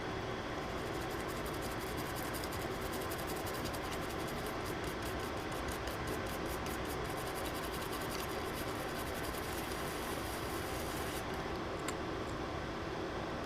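Rapid light scratching of a small tool rubbing at a circuit board's surface over a steady fan-like hum. The scratching stops about eleven seconds in, and a single click follows.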